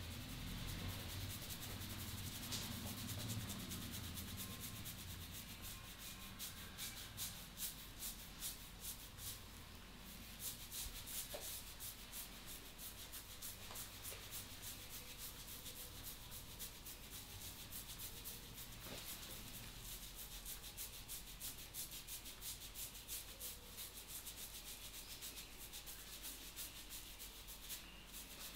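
Hands rubbing and kneading through hair and over the scalp in an Indian head massage: a steady run of soft rustling, scratchy strokes close to the microphone, coming in quick rhythmic pulses.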